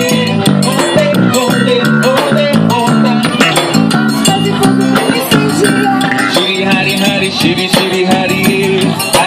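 Live forró band playing a steady, up-tempo groove: a triangle ticking in quick, even strokes over the zabumba drum's beat, with accordion melody and guitar.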